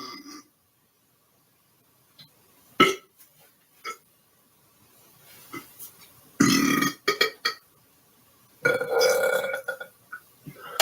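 A man burping twice: a loud burp about six and a half seconds in and a longer one around nine seconds, with a couple of short sharp sounds earlier.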